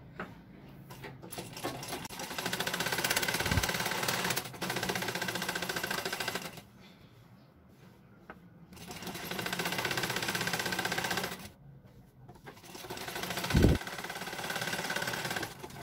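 Black Singer sewing machine stitching the hem of a cotton bed sheet: fast, even clattering in three runs with short pauses between them. Two dull thumps come through, one in the first run and a louder one in the last.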